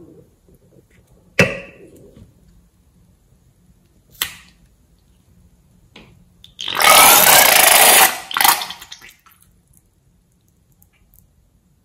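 Red liquid squeezed out of a filled balloon through a narrow nozzle into a glass bowl, spluttering and hissing for about a second and a half, then a shorter second spurt. Two sharp clicks come before it.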